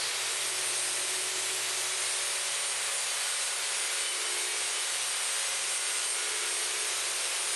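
Angle grinder running steadily against steel, abrading off rust and pitting, a continuous gritty hiss over a faint steady motor whine.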